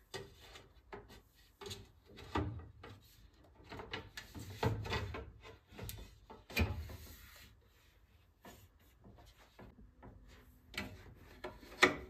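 Oven door's inner glass panel being handled and lifted out of its frame: scattered clicks, knocks and rubbing of glass on metal. Two short squirts of a trigger spray bottle come near the end.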